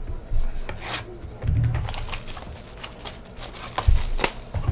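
Trading-card boxes being handled and opened on a table: crinkling and tearing of the packaging with scattered crackles, and a couple of dull thumps as boxes are moved or set down, about one and a half seconds in and again near four seconds.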